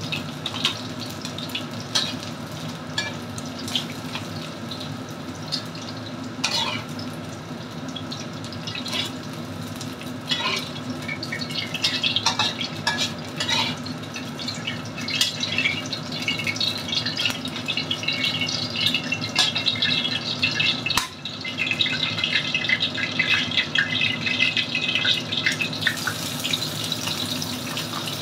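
Diced chicken frying in oil in a wok, sizzling, with a metal spoon and slotted skimmer clicking and scraping against the pan as the pieces are stirred. The crackle of the oil grows denser about twelve seconds in.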